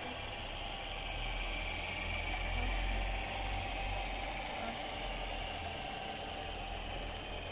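Radio-controlled rowing boat's small motor and oar mechanism whirring steadily, over a low fluctuating rumble, a little louder about three seconds in.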